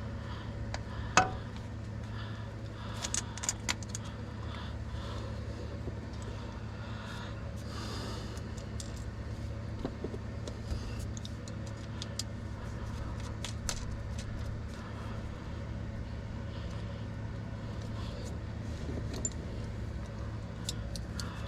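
Metallic clinks and clicks of hand tools and loose metal parts being handled while the wires are taken off a removed starter, with one sharp clank about a second in and a quick run of small clicks near the end. A steady low hum runs underneath.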